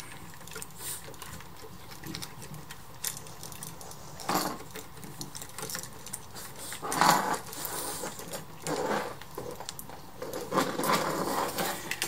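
Light clicks, scrapes and rustles of hands working stiff household electrical wires with wire cutters at a wall switch box, with louder bursts of handling noise about four seconds in, around seven seconds and near the end.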